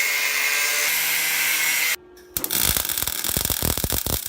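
A power tool runs steadily for about two seconds and cuts off abruptly. After a short pause, a rapid run of sharp mechanical clicks follows.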